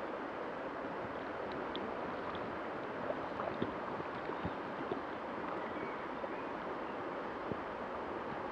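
Shallow river running over stones, a steady rush of water, with a few small splashes a little after the middle.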